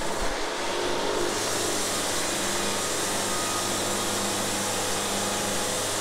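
Band sawmill running steadily as its blade cuts a board off a walnut cant, the blade and sawdust hiss building up about a second in and then holding over a constant motor hum.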